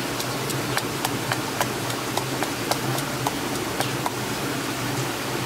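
Wooden pestle pounding in a stone mortar: quick, regular knocks, about three a second, over a steady hiss.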